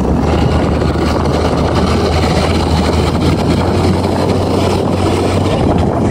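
Hürlimann Master 165 tractor's diesel engine running steadily under load while pulling a four-furrow plough through the soil, a constant low hum with no change in pitch.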